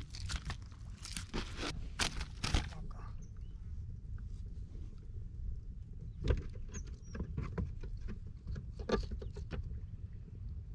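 Scattered clicks and light knocks of hands working fishing line and hooks on a wooden boat, over a low steady rumble. A cluster of clicks comes in the first three seconds, and more come about six to nine seconds in.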